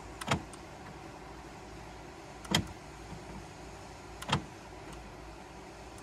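Honda CR-V power door lock actuators clunking three times, about two seconds apart, as the doors are locked and unlocked from a replacement driver's master switch, responding to the switch rather than cycling on their own.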